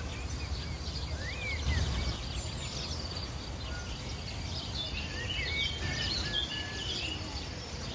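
Small birds chirping and singing, with short high notes scattered through and busier in the second half, over a steady low rumble of background noise.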